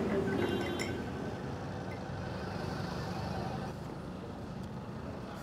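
Steady hum of road traffic, with a few light clinks in the first second.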